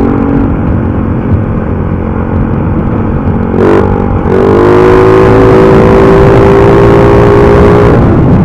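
Motorcycle running through a loud aftermarket 'chicken pipe' open-style exhaust with a modified tip, ridden on the road. The engine note breaks briefly about three and a half seconds in, then holds and climbs slowly again.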